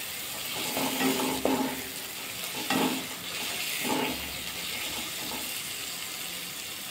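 Wooden spatula stirring and scraping a thick onion-tomato masala frying in a non-stick kadai, with a steady sizzle. Several louder scraping strokes come in the first few seconds. The masala is being fried down (bhuna) after the tomatoes have melted.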